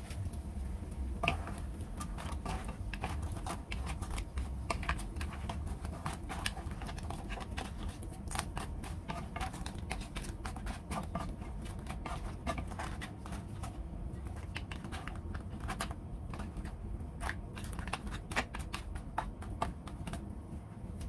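Wooden spatula stirring and turning pieces of crab in a nonstick pan, the hard shells clicking and knocking against each other and the pan in an irregular clatter. A steady low hum runs underneath.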